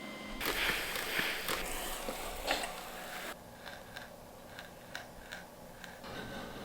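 A hand tool scraping and cutting wood for about three seconds, then a run of small clicks and taps.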